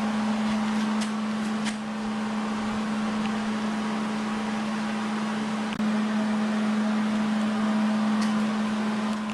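MIG welding arc laying a continuous bead: a steady, buzzing crackle, broken off for an instant about six seconds in.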